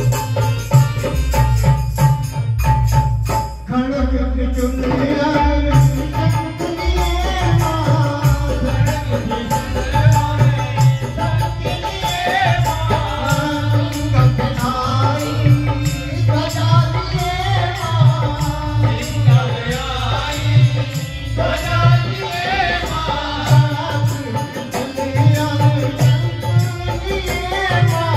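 A man sings a Hindi devotional bhajan into a microphone over a steady hand-drum beat; the voice comes in about four seconds in, after a short instrumental passage of drum and held tones.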